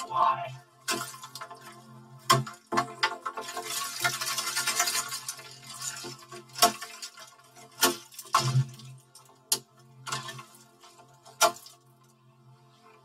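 Knocks and clatter of a Tickle Me Ernie toy being smashed apart, the audio run through a chord effect so that it rings as a steady droning chord. About eight sharp knocks are spread through it, with a hissing rush about four seconds in.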